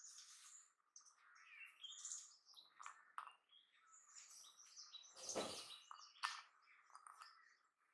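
Faint squeaks and clicks of fingers handling wet blanched almonds against a ceramic bowl, with one louder knock about five seconds in.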